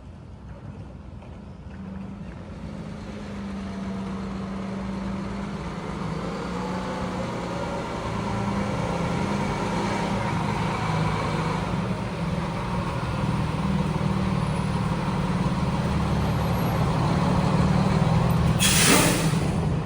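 Heavy fire truck's diesel engine running as it approaches, growing steadily louder, with a short, sharp hiss of air brakes about a second before the end.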